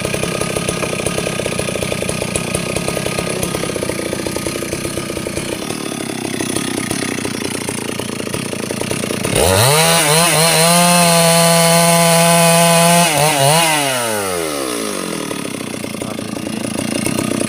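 Stihl 382 two-stroke chainsaw idling, then revved quickly to full throttle about nine seconds in. It holds high speed for about three and a half seconds, wavers briefly, and drops back to idle.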